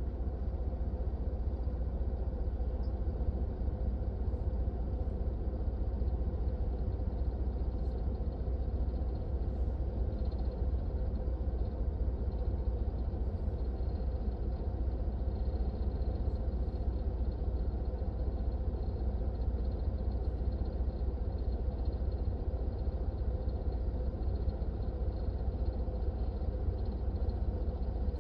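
Steady low rumble inside a car's cabin while the car sits stopped with its engine idling.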